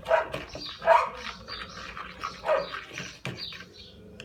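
A dog barking in short barks, about four times.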